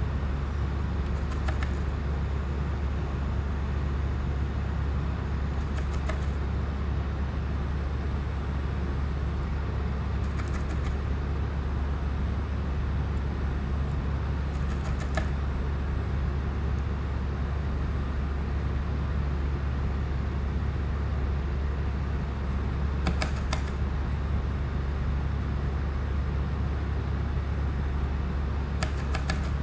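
Steady low hum over constant background noise, with a few faint short clicks now and then.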